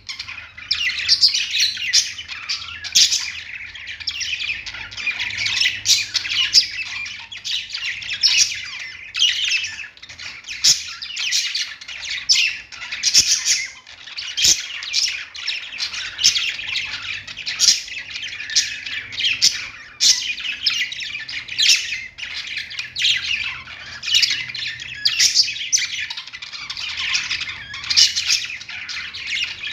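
Several pet budgerigars chattering: a continuous stream of overlapping short chirps, warbles and squawks with no real pauses.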